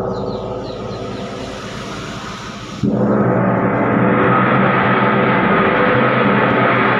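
Monel Chinese gong struck with a soft cord-wrapped mallet: a ring fades for about three seconds, then a fresh, louder stroke sets it ringing again, the ring swelling for about a second and then holding steady.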